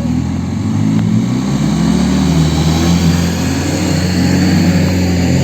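Off-road 4x4 vehicle's engine running steadily while driving.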